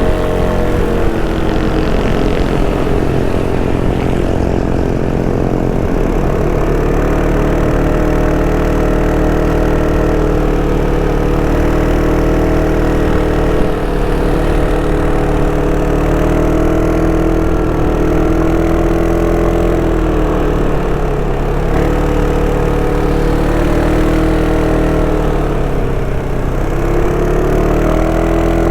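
Sym Cruisym 300 scooter's single-cylinder engine and stock exhaust running under way. Its pitch falls over the first couple of seconds, then holds fairly steady with gentle rises and dips as the throttle changes.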